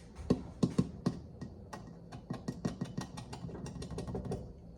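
A quick, irregular run of light clicks and taps, several a second, stopping shortly before the end.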